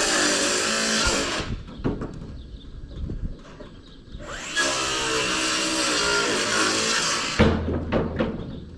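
A handheld power tool running in two bursts of about three seconds each, a steady whine under dense grinding noise, with a sharp knock near the end.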